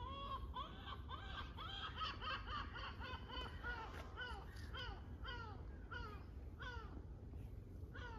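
Kittens mewing in short, high calls, many overlapping in quick succession at first, then thinning to single mews about two a second.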